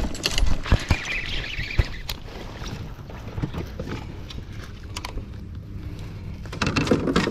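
Handling noise on a kayak while a small bass is reeled in out of a water-hyacinth mat: scattered knocks and clicks of the baitcasting reel and rod against the boat, with rustling. There is a loud rustle at the start and another burst of rustling near the end.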